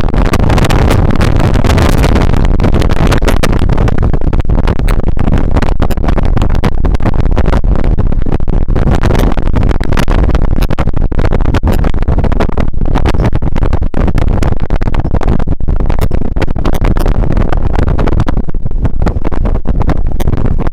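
Strong wind buffeting the microphone, a loud, continuous rumble with constant crackling gusts that drive the recording close to its maximum level.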